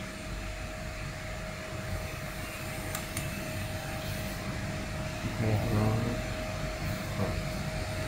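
Double-sided tape pasting machine running, a steady hum with a constant whine over it. A few light clicks come about three seconds in.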